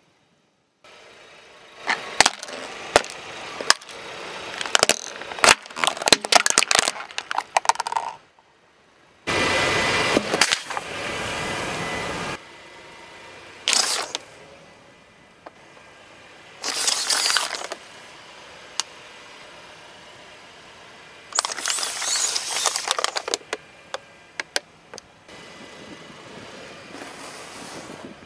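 A car tyre rolling over and crushing objects on asphalt. First comes a string of sharp plastic cracks and snaps, then several longer bursts of crunching noise with quieter gaps between.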